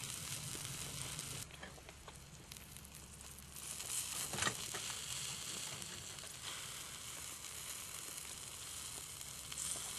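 Rib steak sizzling on a steel grill plate over hot coals: a steady hiss that drops quieter for about two seconds soon after the start, then comes back, with one sharp click about four seconds in.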